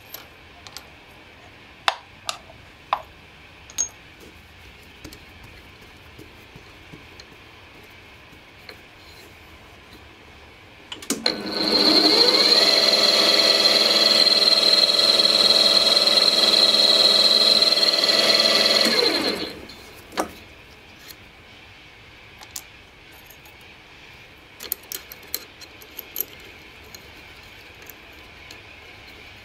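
Bench drill press motor starting up, running steadily for about eight seconds with a high whine over a lower hum, then winding down. Light clicks and knocks of small tools being handled come before and after.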